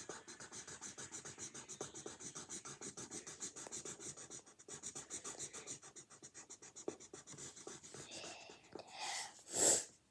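Felt-tip marker scribbling on paper in quick back-and-forth strokes, about five a second, filling in an area with lines. Near the end the strokes stop and two louder scuffs follow.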